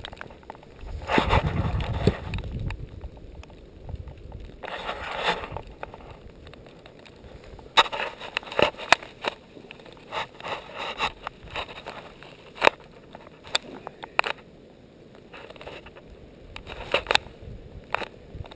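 Deep snow crunching and scraping as a person works through it, with many sharp crackles and clicks and a few longer scrapes.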